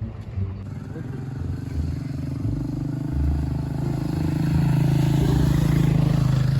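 A motor vehicle engine running with a steady low hum that grows louder over the last few seconds.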